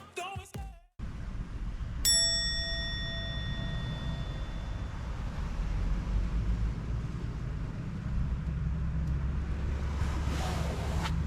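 A single bright bell-like ding about two seconds in, ringing out and fading over a couple of seconds, over a steady low rumble.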